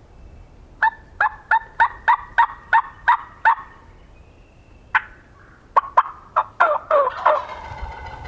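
A run of about nine evenly spaced turkey yelps, then a wild turkey gobbler gobbling, a fast rattle of notes dropping in pitch near the end, over low wind noise.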